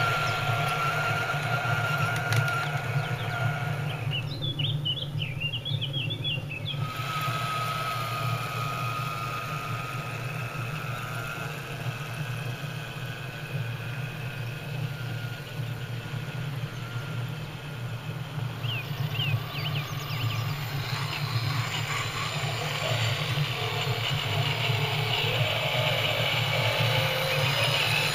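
Electric motors and gearboxes of radio-controlled scale crawler trucks whining as they crawl slowly over rough ground, the whine stopping for a few seconds about four seconds in and then resuming. Birds chirp during the pause and again later.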